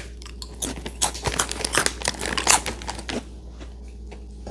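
Crisp chips being bitten and chewed close to the microphone: a run of sharp crunches that thins out to softer chewing after about three seconds.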